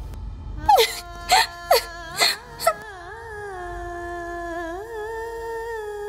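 A woman crying in five short sobbing cries, each falling in pitch, over the first three seconds. Then soft background music of long held notes comes in and carries on.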